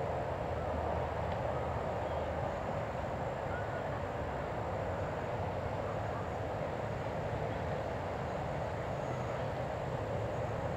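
Steady, unchanging outdoor mechanical hum with a hiss of noise over it, and a few faint bird chirps.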